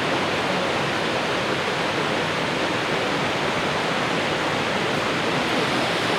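Fukuroda Falls pouring: a steady, even rush of falling water.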